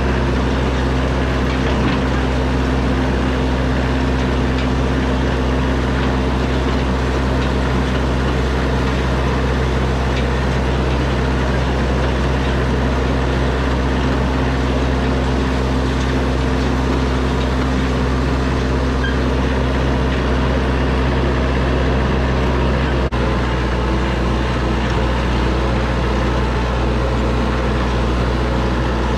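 Yanmar compact tractor's diesel engine running steadily under load as it drives across a hay field pulling a rake, its note holding even.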